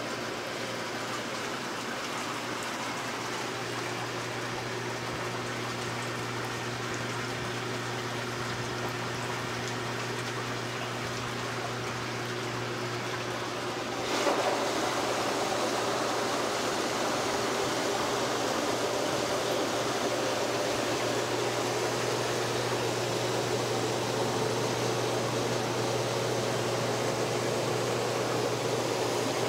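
Dynasty hot tub running: rushing water over a steady low pump hum. About 14 seconds in it suddenly gets louder and fuller, then stays steady.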